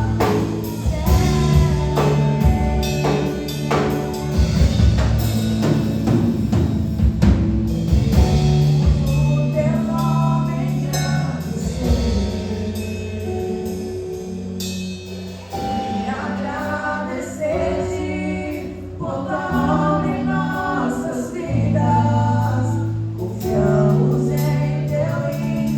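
Live gospel worship music: voices singing together over a band with bass and drums, the drum hits clearest in the first several seconds.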